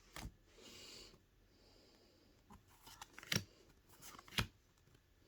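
Pokémon trading cards being handled: a soft sliding rustle near the start and three short sharp taps, the loudest two about three and a half and four and a half seconds in.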